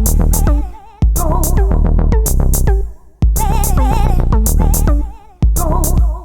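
Electronic music: a drum-machine beat over heavy bass, with wavering, vibrato-like synth lines on top. The music drops away briefly about every two seconds, then comes straight back in.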